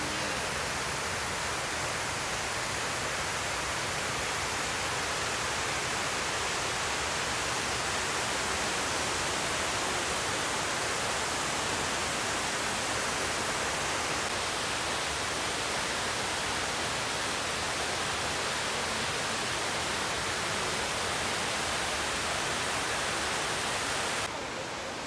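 A steady rushing noise, even across all pitches with no distinct tones or knocks, that drops suddenly near the end.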